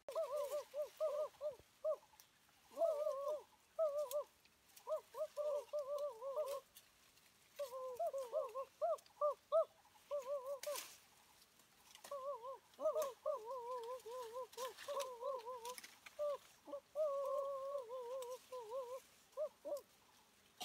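A bird calling in a rapid warbling trill, in phrases of a second or more broken by short gaps. A brief rustle of leaves and branches sounds about ten and a half seconds in.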